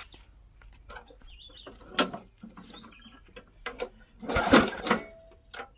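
A Weed Eater push mower's recoil starter is pulled and the engine turns over without settling into a steady run. There is a sharp clunk about two seconds in and a longer, louder cranking burst near the end. The clunk comes from the blade, which was loose and mounted backwards.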